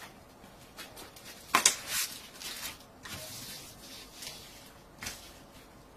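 Rustling and crinkling of a rolled diamond painting canvas being handled, unrolled and smoothed flat, in several short bursts, the loudest about a second and a half in.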